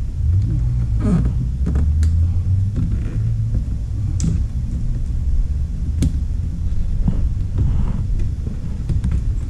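A steady low rumble, with a handful of sharp clicks from plastic push-pin body clips being worked into the car's rear spat beside the exhaust finisher.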